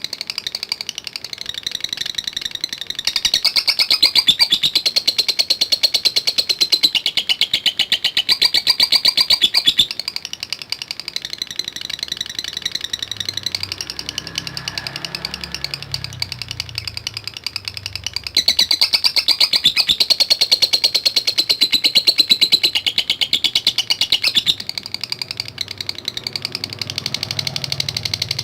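Lovebird giving a long, unbroken rattling chatter of very fast, sharp high-pitched ticks, the 'ngekek' song, swelling louder and easing off in long stretches.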